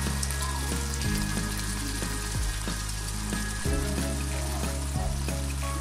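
Hilsa fish steaks frying in oil and spice paste in a pot, giving a steady sizzle. Background music with low sustained notes plays underneath.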